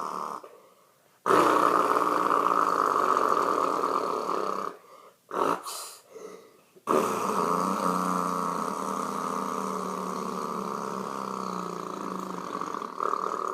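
A person imitating a late-1980s diesel semi-truck engine with their voice: a long, buzzing drone, broken by breath pauses about a second in and again around five to seven seconds in, with a brief swoop in pitch during the second pause.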